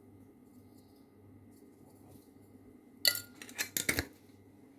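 Kitchen utensils clinking and clattering against a dish or pot: a quick cluster of sharp clinks about three seconds in, over a faint low hum.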